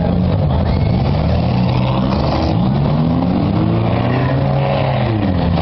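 Several demolition derby cars' engines revving, their pitch rising and falling as they run over one another.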